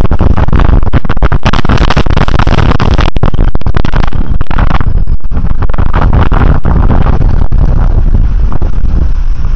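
Loud wind buffeting on a bicycle-mounted camera's microphone while riding, a rough rush that cuts out briefly many times, with road traffic running underneath.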